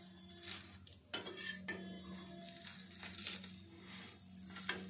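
Metal spatula scraping and tapping on a dosa griddle (tawa) while folding and lifting a crisp dosa, a handful of separate scrapes and clicks over a steady low hum.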